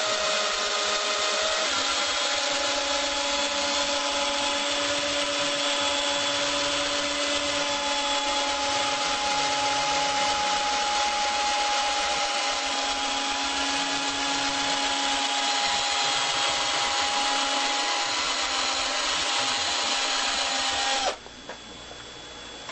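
Cordless drill running continuously, spinning a spool on a long rod, with a steady motor whine. The pitch steps up about two seconds in, and the drill stops suddenly near the end.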